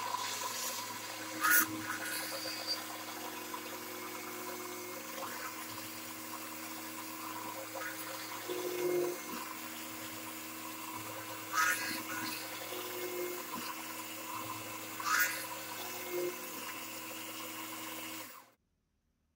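Drill press running steadily with a 7/32-inch bit, boring pilot holes into the wooden heel of a guitar neck down to a set depth stop. The steady motor hum has three brief louder moments as the bit cuts, and it stops abruptly shortly before the end.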